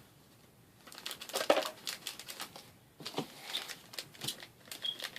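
Foil wrapper of a trading-card booster pack crinkling and tearing open by hand. The rustling starts about a second in, peaks sharply at about a second and a half, and picks up again from about three seconds.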